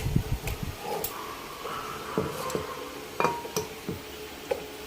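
A few scattered light clinks and taps over a faint steady hum.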